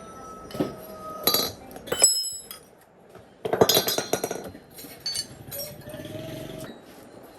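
Metal tools and parts clinking and clanking together, a handful of separate strikes with a dense cluster of rattling clinks about halfway through; one strike about two seconds in rings on briefly.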